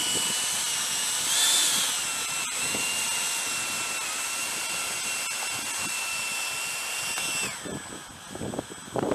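The 70 mm electric ducted fan of an FMS F-18 model jet running with a steady high whine. The throttle is briefly opened about a second and a half in, the pitch rising, and the fan spools down near the end before winding up again.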